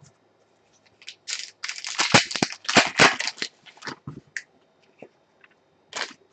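Foil wrapper of an Upper Deck Ultimate Collection hockey card pack crinkling as it is handled and the cards are pulled out. The crinkling comes in a run of bursts from about a second in to the middle, then once more near the end.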